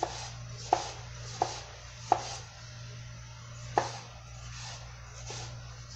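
Kitchen knife cutting a tomato on a plastic cutting board: about six sharp taps of the blade hitting the board, unevenly spaced, over a steady low hum.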